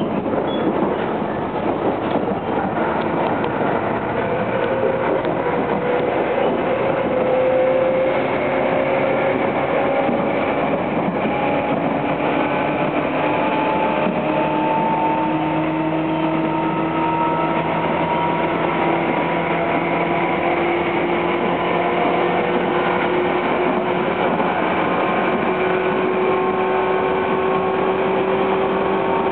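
Running sound inside a Tobu 10030 series electric train's motor car: the whine of the traction motors and gears climbs in pitch as the train picks up speed, over a steady rumble of wheels on the rails.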